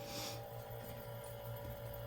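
Faint, steady electrical hum with a few constant tones, and a brief soft rustle in the first half-second.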